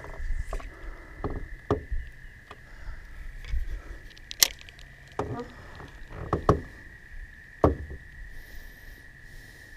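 Scattered knocks and clicks from a spinning rod and reel being handled in an aluminum jon boat, about eight in all, with one sharp click a little before the middle. A faint steady high tone runs underneath.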